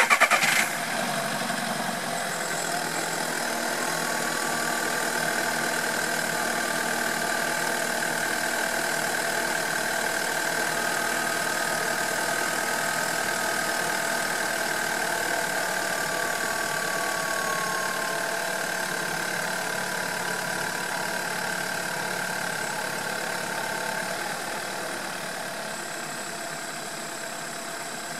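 A Volkswagen Golf 6's 1.4 TSI turbocharged four-cylinder engine starts with a loud burst and then idles steadily, with a constant high whistle running through it. The owner reports rattling and clattering at start-up and cannot say where it comes from. The idle drops a little in loudness near the end.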